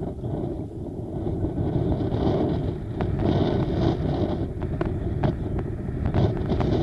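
Steady low wind rumble buffeting the microphone over open, choppy sea. From about three seconds in come irregular sharp clicks and ticks.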